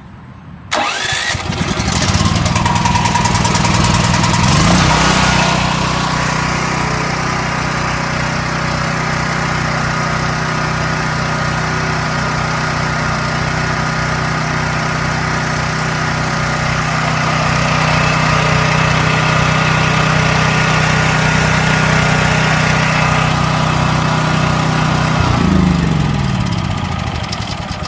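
Champion 100155 dual-fuel generator's single-cylinder engine starting on its electric starter with the choke set, catching about a second in and coming up to speed, then running steadily. Near the end its engine speed drops.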